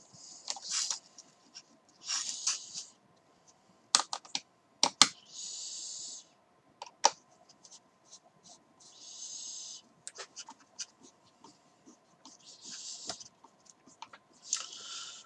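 A hex driver turns M3x14 screws into an RC buggy's front shock tower and wing mount. Sharp clicks, loudest about 4 and 5 seconds in, mix with four or five short rasping bursts as the screws are wound in.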